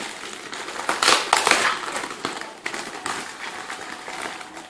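Plastic packaging crinkling and rustling as it is handled, in irregular crackles that are loudest about a second in.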